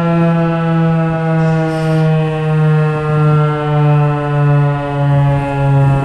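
Federal Signal outdoor warning siren sounding a steady tone during its monthly test. The pitch falls slowly and the loudness swells and fades about every two-thirds of a second.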